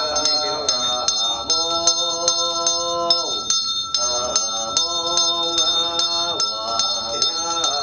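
A bell struck in a steady rhythm, about three strokes a second, its ringing held throughout, under a voice chanting long drawn-out notes that glide down at the ends of phrases.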